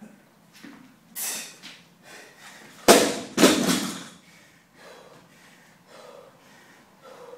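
A loaded 80 kg barbell with bumper plates is dropped onto a rubber lifting mat. It lands with a heavy thud about three seconds in and bounces down a second time half a second later. A hard breath comes from the lifter about a second in, and there is heavy breathing afterwards.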